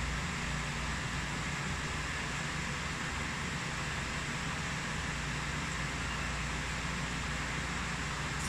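Steady machine hum with an even hiss, unchanging throughout.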